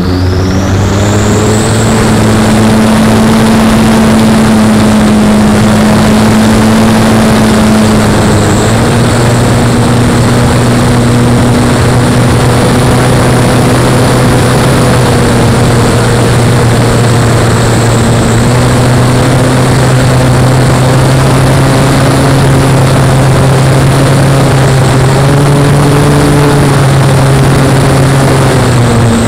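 Webra Speed 55 two-stroke glow engine in a model biplane running under power, heard close up from on board, with propeller and air noise. Its pitch climbs over the first couple of seconds, then holds steady with small shifts, and dips slightly near the end.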